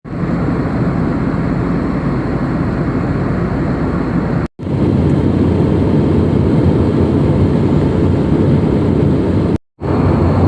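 Steady roar of an airliner's cabin noise, engines and rushing air, broken twice by a brief silent gap.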